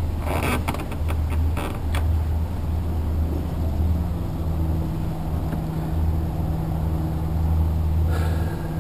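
Motorboat engine running steadily at low speed, with a few knocks in the first two seconds. About three and a half seconds in, a low hum sets in, dips slightly and then holds steady.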